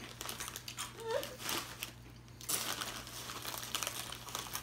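Plastic potato-chip bag crinkling as it is handled, in two spells of rustling with a short pause about two seconds in.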